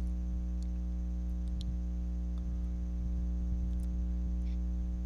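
Steady electrical mains hum picked up by the microphone, with a few faint computer-mouse clicks scattered over it.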